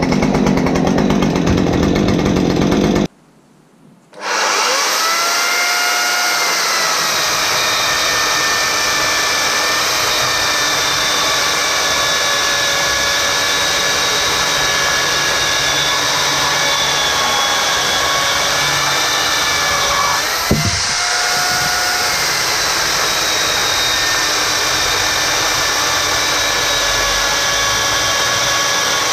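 A Husqvarna gasoline chainsaw running for about the first three seconds, then, after a short gap, a Makita electric chainsaw spinning up and cutting steadily through a log with an even whine. Its pitch dips briefly about two-thirds of the way through, then comes back up.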